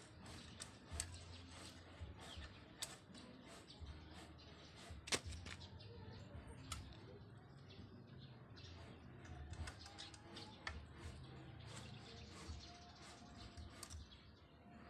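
Faint scattered clicks and taps of hands working a bicycle's front brake cable and fittings, with one sharper click about five seconds in.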